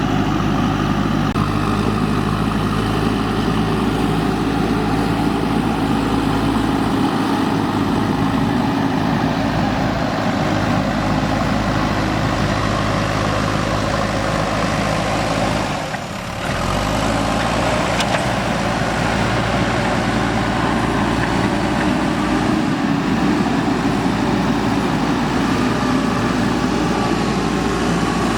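JCB 3DX backhoe loader's diesel engine running steadily, with a brief dip in level a little past halfway.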